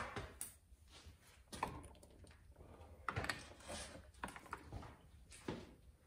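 Irregular light clicks, taps and rustles of hands working at a motorcycle's plastic dash panel around the ignition key, trying to free the panel.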